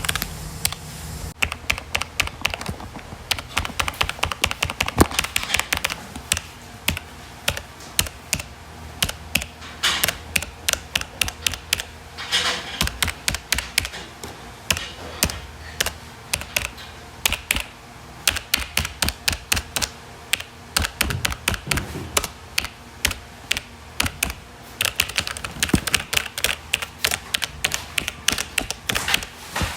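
Typing on a computer keyboard: a steady stream of irregular key clicks with faster flurries now and then.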